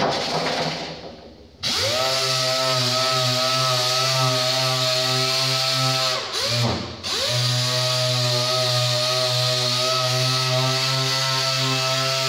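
A burst of compressed-air hiss that fades, then an air-powered body-shop sander starts about a second and a half in and runs at a steady pitch, winding down briefly and back up near the middle.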